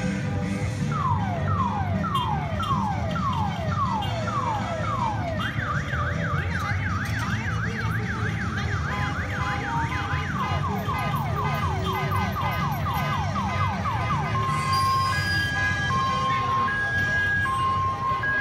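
Ambulance's electronic siren cycling through its tones: first a run of falling wails about two a second, then a fast rising-and-falling yelp, then quicker falling sweeps, and in the last few seconds a slow two-note hi-lo. A steady low rumble of slow-moving vehicle engines runs underneath.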